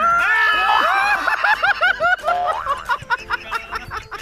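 Several people laughing together, quick high-pitched laughs overlapping, dying down near the end.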